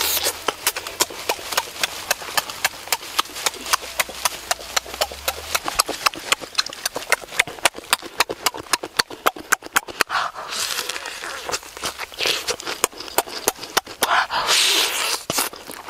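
Close-up eating sounds of a person chewing roast chicken and lettuce with the mouth open: a quick, steady run of wet lip smacks and chews, several a second, with two longer breathy sounds about ten and fourteen seconds in.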